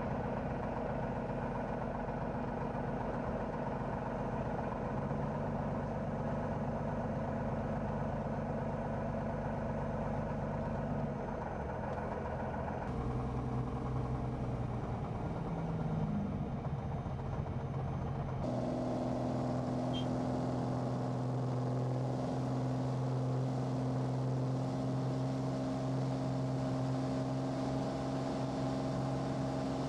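Slingsby Firefly trainer's piston engine and propeller droning steadily, heard from inside the cockpit. The engine note shifts abruptly about 13 and 18 seconds in.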